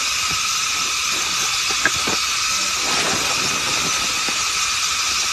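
Fabric cover rustling and dragging as it is pulled off a stone well, over a steady high hiss, with one small click about two seconds in.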